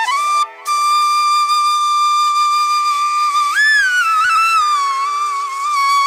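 Background music: a flute playing long held notes with pitch bends and ornaments over a steady drone.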